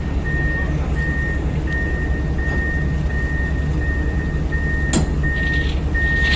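Backup alarm on heavy equipment beeping in a steady series, about three beeps every two seconds, over a diesel engine running. A couple of sharp knocks come near the end.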